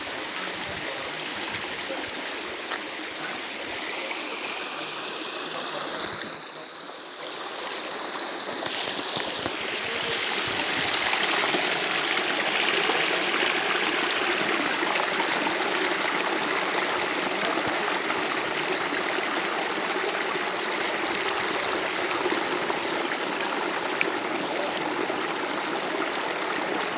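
Shallow stream rushing and splashing over rocks in small rapids, a steady flow that grows louder after about ten seconds.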